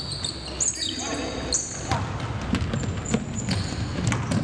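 Basketball being dribbled on a hardwood gym floor, with short high sneaker squeaks and indistinct players' voices.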